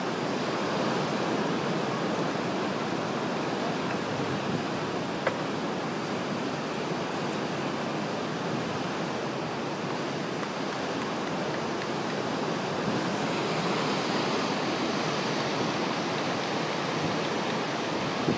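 Steady rush of ocean surf breaking and washing over rocks along the shore.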